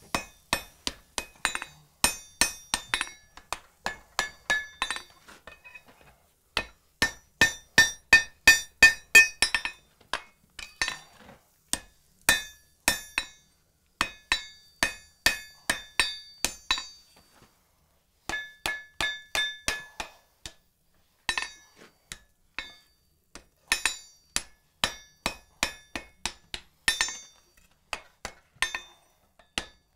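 Hand hammer striking white-hot iron on an anvil in quick runs of about three to four blows a second, each blow with a short bright ring, with brief pauses between runs and the longest pause about two thirds of the way through. This is a forge weld: fluxed iron pin being welded into the rolled eye of a strap hinge's barrel.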